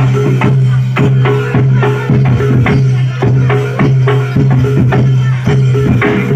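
Live Reog and jaran dor ensemble music: a steady beat of drum strokes, about three to four a second, over a sustained low tone and a repeating higher melodic figure.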